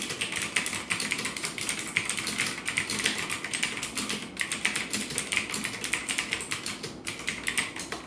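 Fast typing on a Magicforce Smart 82 mechanical keyboard with clicky Gateron Blue switches: a dense, rapid run of sharp key clicks, with a couple of brief pauses.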